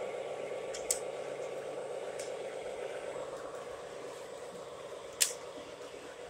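O gauge model trains running on three-rail track, a steady whirring noise that slowly fades, with two sharp clicks, one about a second in and a louder one about five seconds in.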